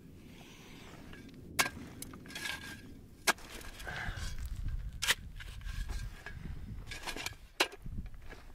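Shovel digging into dry, stony dirt: four sharp stabs of the blade about every two seconds, with crunching and scraping of soil between them.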